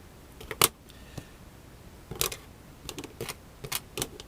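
A handful of sharp, separate clicks and light taps from small metal parts and tools being handled while cotton is wicked into a two-post RDTA deck.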